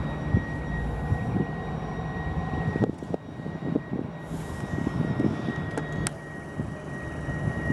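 Low drone of West Coast Railways class 57 and class 47 diesel-electric locomotives approaching from a distance with empty coaching stock, mixed with wind buffeting the microphone. A faint steady high tone runs under it, and a single sharp click comes about six seconds in.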